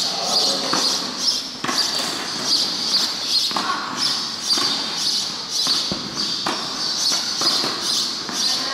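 Tennis ball being struck by racquets and bouncing on a clay court in a rally, a sharp knock every one to two seconds, over a steady high-pitched hiss.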